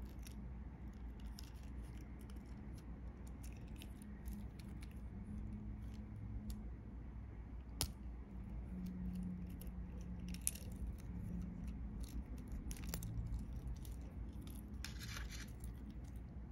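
Light metallic clinking and small clicks of a Casio A168W-1's stainless steel bracelet and case being handled. Two sharper clicks come about eight and thirteen seconds in, and there is a short rustle near the end.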